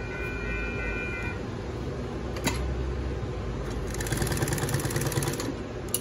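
Mitsubishi twin-needle industrial lockstitch sewing machine: a single sharp click, then a rapid run of needle strokes for about a second and a half, ending with a couple of clicks near the end.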